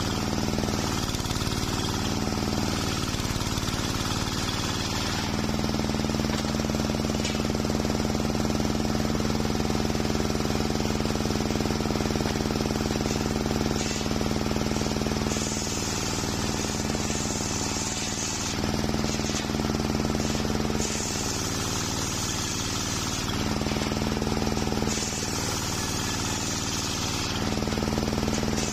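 Homemade table circular sawmill running with a steady hum, its large blade ripping a waru log into planks. The hiss turns harsher several times as the blade bites into the wood.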